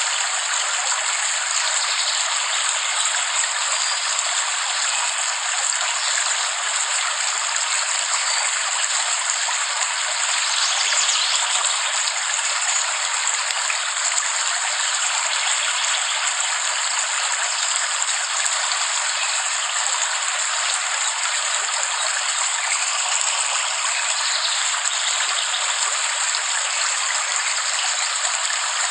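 Steady rain falling, an even hiss with no low rumble and no separate drops or thunder standing out.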